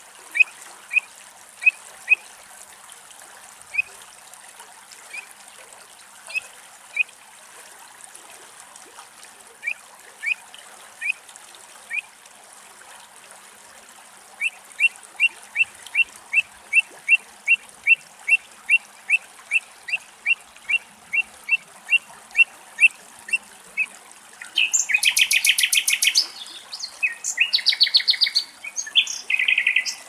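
Pied avocet calling: short, clear, fluting 'kluit' notes, at first scattered, then a fast even run of about three a second. Near the end they turn into louder, harsher, rapidly pulsed calling.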